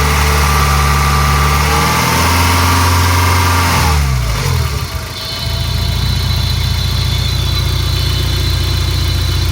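Peugeot 306 GTi-6's 2.0-litre four-cylinder engine held at raised revs, then dropping back about four seconds in and settling to a steady idle. At idle a high thin whine sits over the engine: the rattly, screechy noise whose cause the owner doesn't know.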